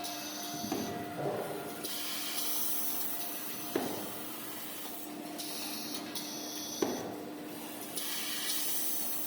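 Automatic maxi roll band saw cutting machine running through its cycle: a steady motor hum with hissing, and a short clunk about every three seconds, three times.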